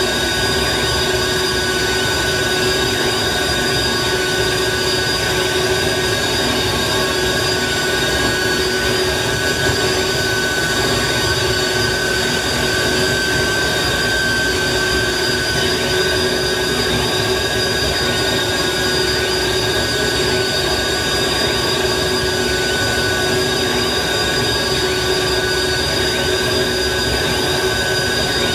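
Harsh noise music played live on electronics: a dense, unchanging wall of hiss and rumble with several sustained tones held steady on top, one low and three higher, the middle one loudest.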